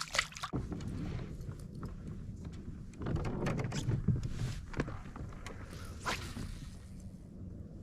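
Knocks and rustles of gear being handled in a kayak over a steady low rumble, with a louder stretch of handling about three seconds in and a sharp knock about six seconds in.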